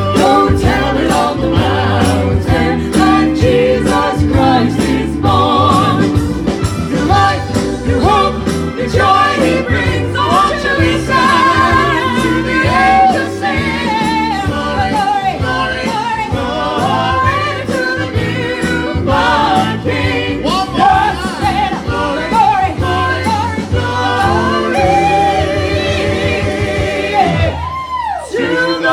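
Singing with musical accompaniment, the voices holding notes with vibrato over sustained low notes.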